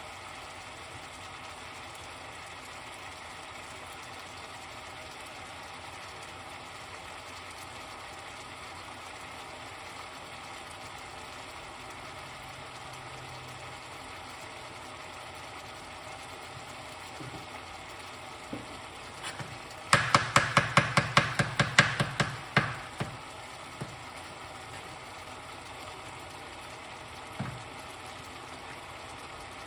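Chopped vegetables sizzling steadily in a pot on a hotplate. About twenty seconds in, a quick run of about twenty sharp knocks lasts two to three seconds, around the time sliced mushrooms go into the pot.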